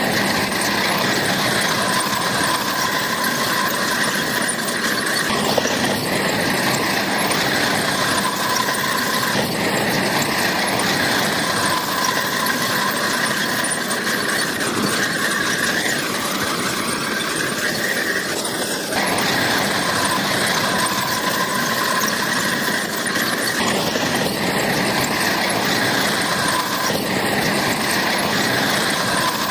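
Bulldozer working, its engine running steadily under a high metallic squeal from the steel crawler tracks that comes and goes.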